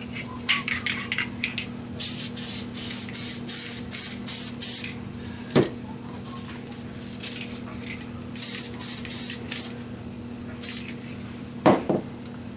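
Aerosol can of multi-purpose spray adhesive spraying in many short hissing bursts: a quick run of them about two seconds in, then a few more near the end. A couple of sharp knocks come in between.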